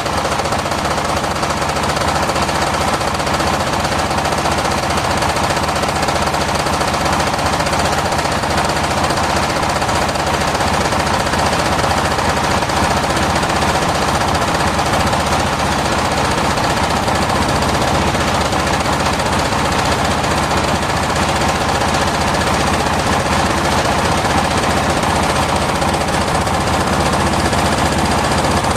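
Circular-saw sawmill running steadily and loudly: a continuous mechanical din with a rapid chattering rattle and a steady hum.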